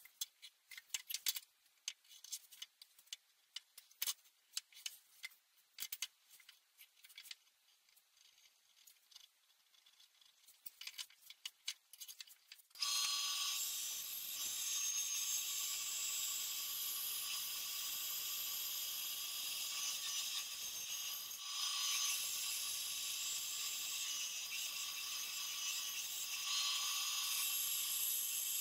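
Light clicks and taps of wood pieces being handled, then about halfway through a bench-top band saw switches on and runs steadily with a high hiss and a whine, its blade cutting plywood.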